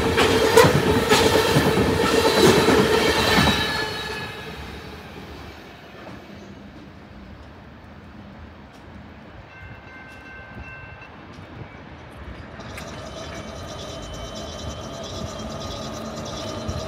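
Loaded coal train hopper cars rolling past, with steel wheels clattering over rail joints and steady squealing tones. After about four seconds the sound drops to a quieter rumble. About twelve seconds in, a higher-pitched steady sound joins.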